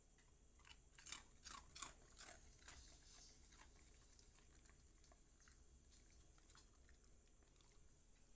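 A dog chewing and crunching food: a quick run of crisp crunches over about two seconds, then a few fainter chews.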